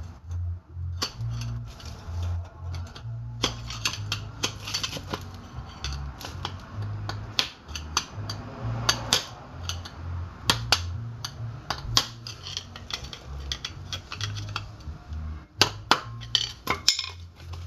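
Hammer striking a flathead screwdriver set against a steel bearing race in a wheel hub: sharp metal-on-metal taps at an uneven pace, driving the race out of the hub. Background music with a bass line plays underneath.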